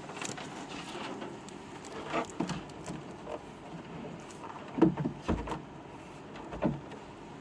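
Handling noises from the MIDI keyboard and its USB cable being plugged in: scattered light clicks and knocks, with one heavier thump about five seconds in.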